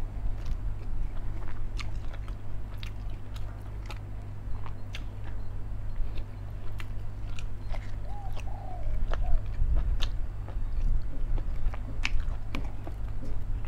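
Close-up chewing of chicken, with many short wet mouth clicks and smacks, over a steady low hum.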